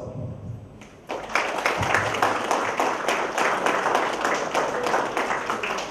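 Audience applauding, a crowd clapping together that starts about a second in after a brief lull.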